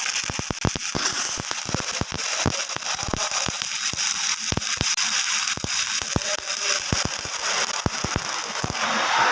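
Stick (shielded metal arc) welding with a 3.15 mm electrode in the flat position: the arc gives a steady frying crackle of irregular sharp pops over a high hiss. The pops stop just before the end as the arc is broken.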